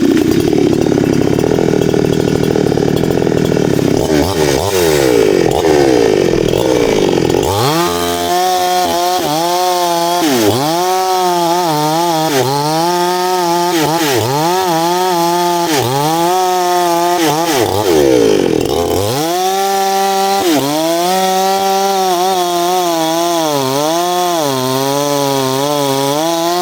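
Chainsaw running at full throttle, then cutting wood from about eight seconds in, its engine note dipping and recovering about once a second under the load of the cut.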